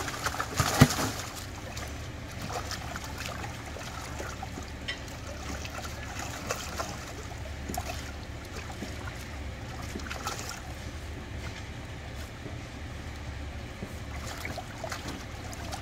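Live fish thrashing in a water-filled holding tank, with a burst of loud splashes in the first second. After that come scattered small splashes and trickling water over a steady low rumble.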